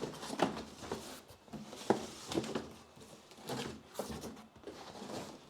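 Packaging box being opened and handled: irregular rustles, scrapes and light knocks, a few sharp clicks among them.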